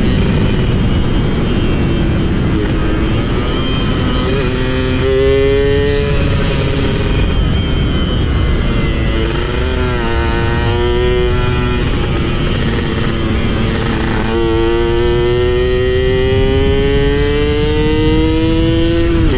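Yamaha F1ZR's single-cylinder two-stroke engine accelerating through the gears. The pitch climbs in short pulls about five seconds in and near ten seconds, then in a long climb from about fourteen seconds that breaks off near the end. A steady low rush runs underneath.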